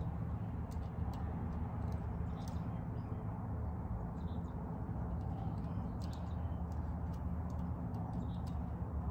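Steady low outdoor rumble with faint, brief high chirps scattered throughout, from small birds.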